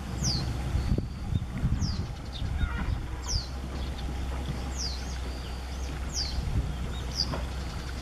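Japanese wagtail giving repeated alarm calls: short, sharp notes sliding downward, about one a second. It is apparently a parent alarmed at fledglings nearby. A steady low rumble lies underneath.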